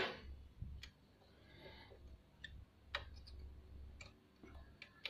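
Faint, scattered light clicks, about half a dozen spread out, as fingers handle the thread guide and tension assembly of a Singer 354 sewing machine while threading it.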